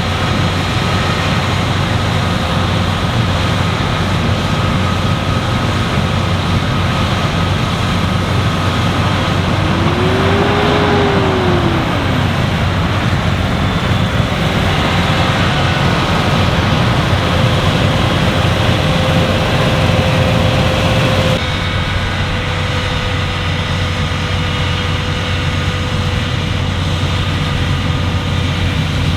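Claas Lexion 8900 combine harvester running steadily at work in wheat, a loud machine drone with a deep hum. About ten seconds in a brief tone rises and falls, and about three-quarters of the way through the sound changes abruptly as the higher part drops away.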